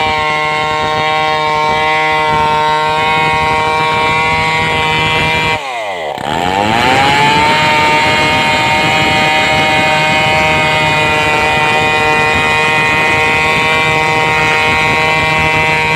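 Stihl two-stroke chainsaw running at high revs under steady cutting. About five and a half seconds in, its pitch falls sharply and then climbs back up to a steady high whine.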